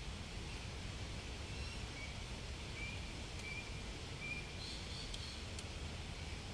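Outdoor ambience dominated by a steady low rumble, with faint short bird chirps, about one a second from two seconds in to about four and a half, and a couple of soft clicks near the end.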